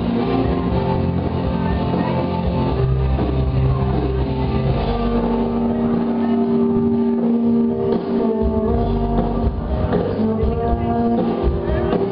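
Loud music with guitar and steady bass, playing without a break.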